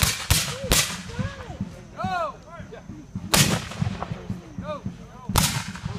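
A ragged volley of black-powder musket fire from a line of reenactors: three shots in under a second, then single shots about three and five seconds in.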